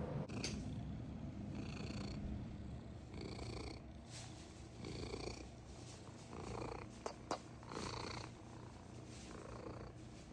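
A cat purring close up, swelling in slow breath cycles about every one and a half seconds. Two short sharp clicks come about seven seconds in.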